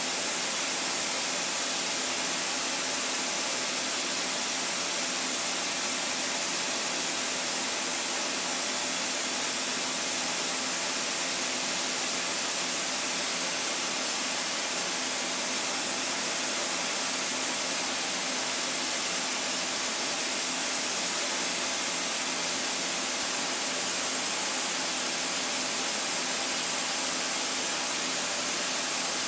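CNC machining centre running a light finishing pass in copper with a 1 mm ball end mill at about 20,000 rpm: a steady hiss with a few faint steady tones beneath it, unchanging throughout.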